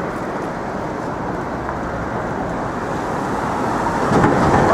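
City street traffic noise, a steady rush of passing vehicles that grows louder near the end.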